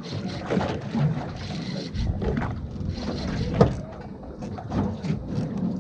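Water slapping and knocking against a small boat's hull at sea, with wind buffeting the microphone.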